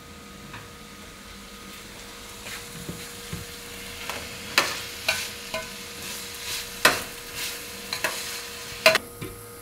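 A plastic spoon stirring diced onion, carrot and celery frying in a pot for a soffritto, the vegetables sizzling softly. From about two and a half seconds in, the spoon scrapes and knocks against the pot about twice a second.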